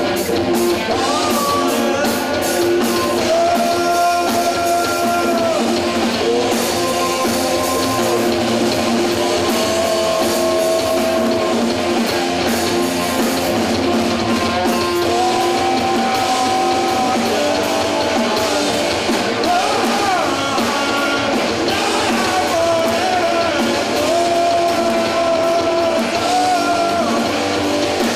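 Live rock band playing: electric guitars and drum kit, with a melody of long held notes that slide between pitches over the steady beat.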